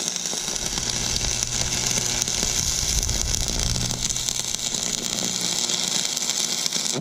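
AC stick welder (buzz box) arc crackling steadily as a weld is run on steel, over a low hum. The arc cuts off suddenly at the very end.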